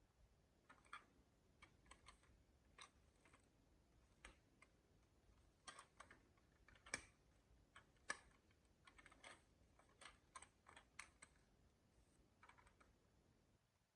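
Faint, irregular light clicks of marbles knocking along a wooden marble run, several close together in places.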